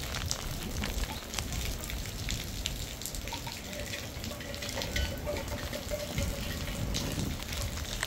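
Heavy rain falling, a steady hiss dotted with many sharp drop strikes, over a low, uneven rumble.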